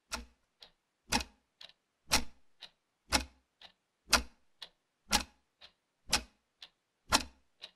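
Clock ticking, a tick-tock sound effect: a sharp tick once a second, each followed half a second later by a fainter tock, with dead silence between.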